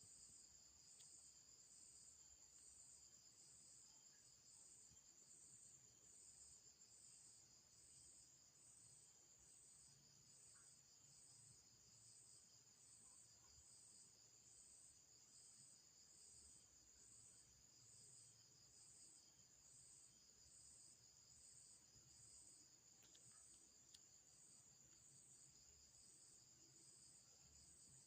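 Faint, steady high-pitched insect chorus with an even pulse of roughly one beat a second.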